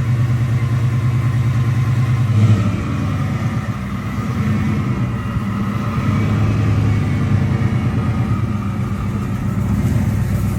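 1970 Plymouth Cuda's engine running just after it finally started, idling with a brief rev about two and a half seconds in and the revs rising and falling a little after that.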